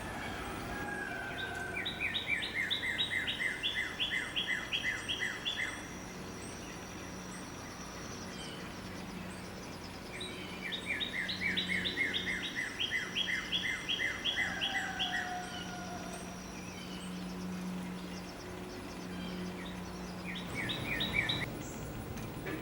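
A songbird singing: two long phrases of quick, repeated down-slurred notes, then a short burst near the end, over a faint steady hum.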